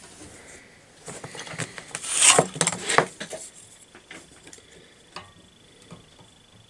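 Rubbing and scraping on a steel tube with a light knock, as the tube is handled and marked out by hand; the scraping peaks about two seconds in, and a few faint ticks follow.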